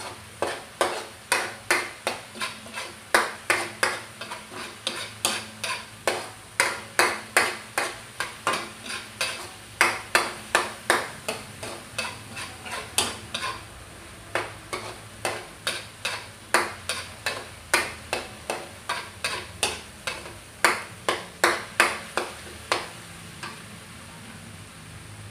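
Metal spatula scraping and knocking against a stainless steel wok as chopped onions are stirred and sautéed until golden, about two strokes a second. The strokes stop near the end.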